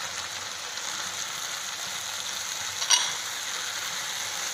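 Shredded cabbage, capsicum and sweet corn sizzling steadily as they fry in oil in a non-stick wok. A single sharp clack about three seconds in.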